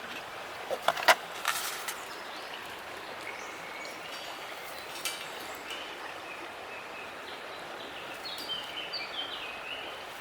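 Steady rush of a river. A few sharp knocks come in the first second and a half, and a small bird chirps near the end.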